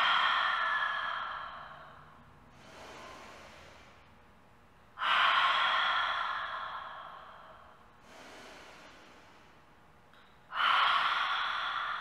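A woman breathing deeply: three forceful open-mouth exhales about five seconds apart, each starting suddenly and trailing off over about two seconds, with a softer inhale through the nose before each of the later two.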